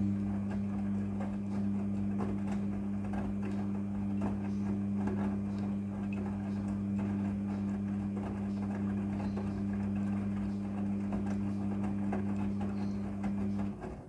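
Midea front-loading washing machine in its wash cycle: the motor turns the drum with a steady hum while the wet clothes slosh and splash inside. The drum stops just before the end and the hum cuts off.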